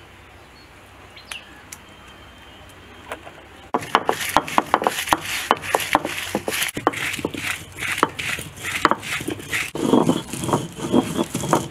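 Stone roller grinding dried red chillies on a stone grinding slab (ammikal). About four seconds in, a loud, dense run of sharp crackles and crunches starts. Near the end a low scraping rumble of stone rolling on stone joins it.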